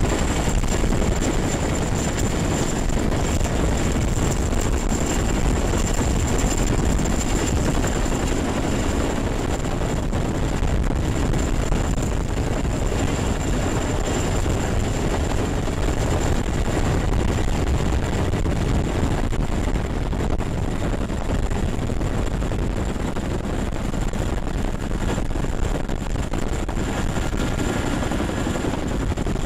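CH-47 Chinook helicopter hovering low overhead during a sling-load hookup: loud, steady rotor and turbine noise with downwash rushing over the microphone, and a thin, steady high whine throughout.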